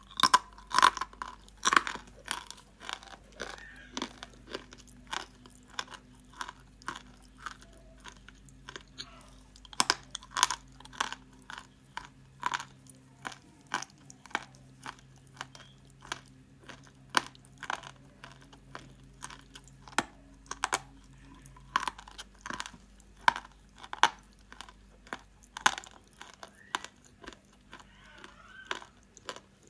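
Close-up crunching of dry edible clay or chalk being bitten and chewed: a steady run of crisp crunches with no speech. The loudest bites come in the first two seconds and again about ten seconds in.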